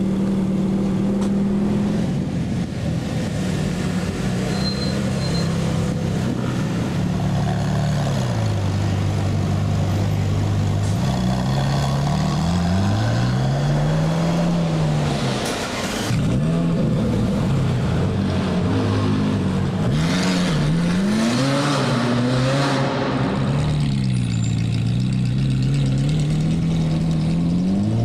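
Ferrari 458 Speciale Aperta's naturally aspirated V8 running, first steady and then pulling away, the engine note repeatedly climbing and dropping as it revs and changes gear.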